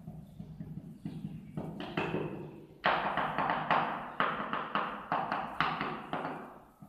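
Skirting tiles being tapped down into fresh mortar with a hand tool. A few scattered knocks come first, then a quick run of sharp taps, about three or four a second, from about three seconds in.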